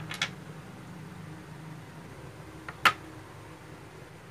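Small metal parts being set down on a wooden tabletop: a quick double click just after the start and one sharp, louder click about three seconds in, over a faint steady low hum.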